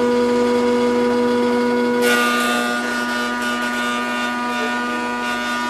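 Kity 636 planer/thicknesser running in thicknesser mode with a steady motor hum. About two seconds in, a board starts through the cutter block, adding a bright planing hiss that then slowly tapers off.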